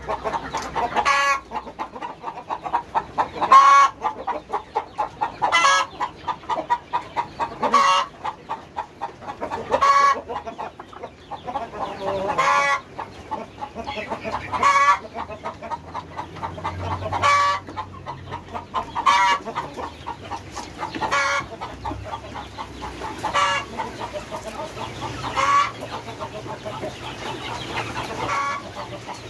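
Kampung chickens clucking continuously, with a short, louder call about every two seconds.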